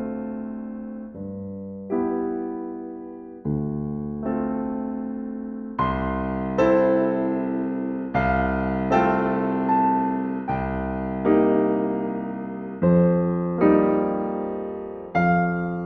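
Slow, gentle solo piano music: chords struck about every one to two seconds, each left to ring and fade before the next.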